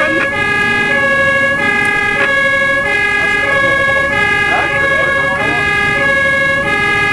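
German fire engine's two-tone siren (Martinshorn) switching back and forth between a low and a high tone, each held for a little under a second, over the truck's engine and road noise.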